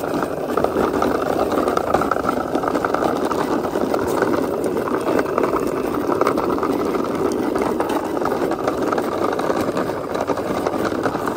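Hard plastic wheels of a large toy car rolling over rough concrete and brick as it is pushed along by hand, a steady rolling noise with no pauses.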